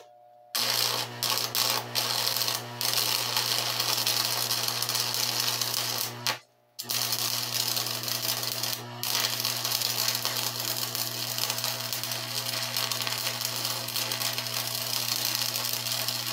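Stick-welding arc burning a 7018 rod, woven back and forth up an angled joint: a steady crackling hiss over a low hum. It strikes about half a second in, drops out briefly a few times, and stops for about half a second around six seconds in before being struck again.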